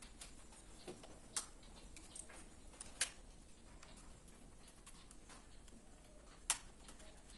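Faint scattered clicks and ticks of a screwdriver working on miniature circuit breakers in a distribution board, with three sharper, louder clicks: about a second and a half in, at about three seconds, and near the end.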